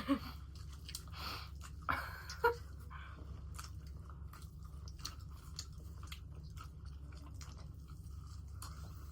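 Close-up mukbang eating sounds: a person biting and chewing crunchy food, with wet crackling clicks of the mouth. There are a few louder bites in the first couple of seconds, then steady soft chewing.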